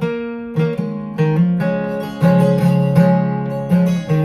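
Acoustic guitar strumming chords in an instrumental passage, each strum ringing on until the next comes about every half second.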